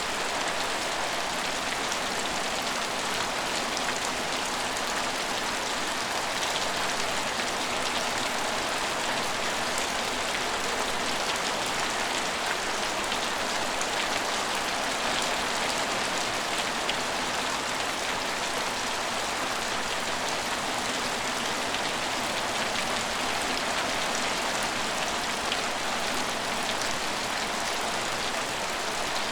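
Steady rain falling on a station, an even hiss with scattered drop ticks.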